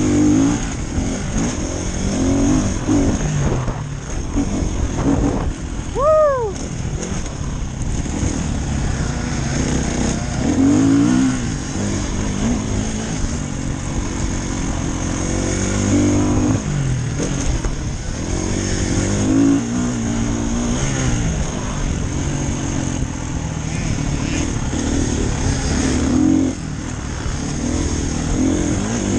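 Dirt bike engine revving up and falling back over and over as the bike is ridden hard on a motocross track, with one brief high-pitched rise and fall about six seconds in.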